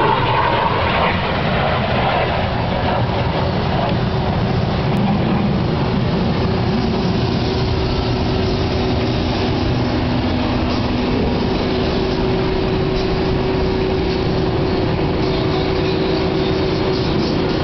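Steady, loud aircraft engine noise, with a faint steady hum coming in about halfway through.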